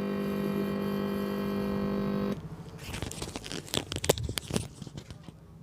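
Steady electrical hum through a test speaker wired to a car stereo's output. It cuts off suddenly about two seconds in, followed by scattered crackles and clicks.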